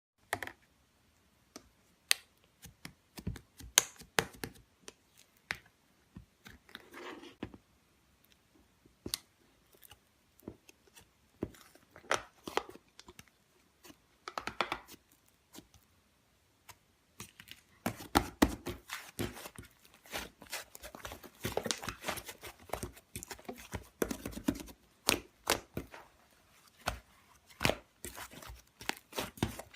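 Slime being squeezed and stretched by hand: scattered sharp pops and clicks with short crackling bursts, turning into dense, continuous crackling in the second half.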